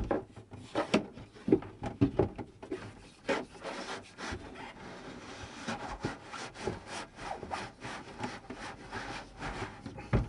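Flexible plastic strip scraping and rubbing behind a shower-cubicle wall panel as it is worked along to free the panel from its adhesive. It comes in irregular strokes, with several louder knocks in the first few seconds, then steadier scraping.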